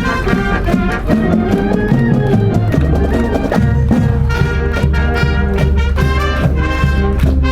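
A high-school marching wind band playing live: trumpets and other brass over a steady drum beat, with a sustained low bass line coming in about three seconds in.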